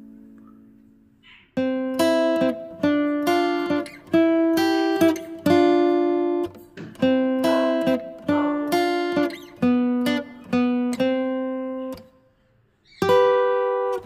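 Background music of plucked acoustic guitar chords, a new chord struck roughly twice a second, each ringing and fading. The music starts about a second and a half in and breaks off briefly near the end before starting again.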